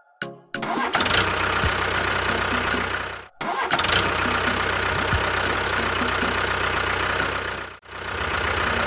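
An engine running steadily, which breaks off abruptly twice, about three seconds in and near the end, and starts again each time.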